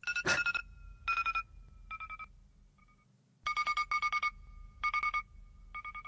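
Electronic ringtone-like sound effect from a cat meme's audio: a steady two-note tone that comes in about six short, pulsing bursts, stepping slightly lower in pitch about halfway through.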